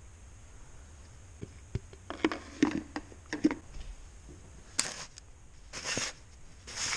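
Hands handling a new filter and its cardboard box: a run of light knocks and clatters, then three short rustles.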